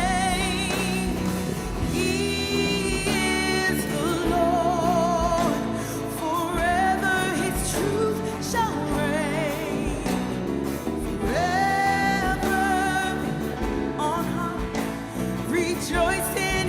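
Live gospel worship music: a band playing with vocalists singing a slow praise song, with held notes sung with vibrato.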